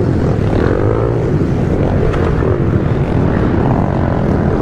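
Several small pit bike engines revving, their pitch rising and falling as they accelerate and ease off, with one engine close up and others around it.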